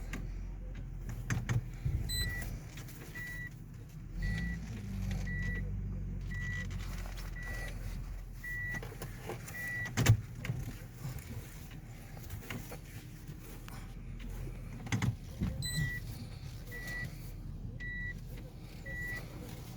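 A car's electronic warning chime beeping steadily about once a second, stopping for a few seconds after a sharp knock and then starting again, over the low hum of the car.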